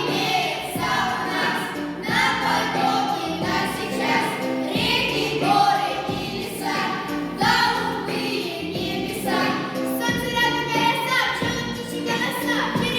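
A song: a group of voices singing over instrumental accompaniment.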